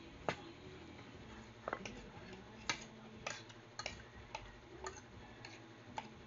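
A string of sharp, irregularly spaced clicks and taps, about ten of them.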